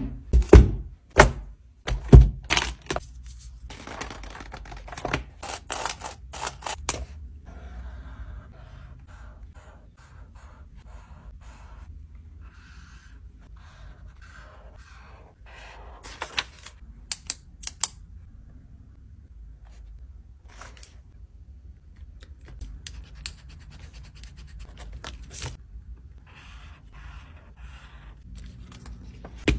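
Desk and stationery sounds: several sharp knocks and clicks in the first few seconds as a book and other things are set down on a desk, then stretches of a pen scratching across paper as it writes along a ruler, with scattered taps and clicks between.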